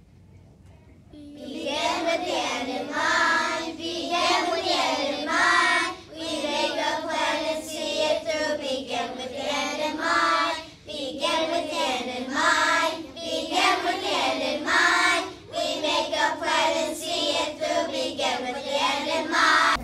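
A class of young children singing together in unison, starting about a second in, in phrases broken by short pauses.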